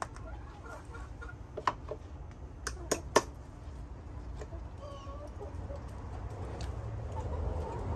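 Chickens clucking softly, with a few sharp knocks and taps from wood being handled about two to three seconds in.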